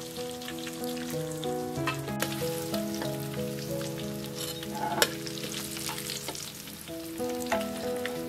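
Food frying in hot oil: a steady sizzle full of crackles and pops, one pop louder about five seconds in. Soft background music of held chords plays underneath.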